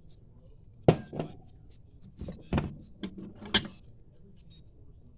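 About seven sharp metal clinks and knocks, spread over a few seconds with the loudest about a second in, from a Melling high-volume oil pump and its steel pickup tube being handled.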